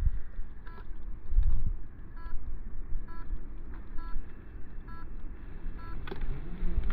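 Wind buffeting the microphone in gusts, with a short chirp repeating about every 0.8 seconds. Near the end, the electric motor of an RC rock crawler starts to whine, rising in pitch.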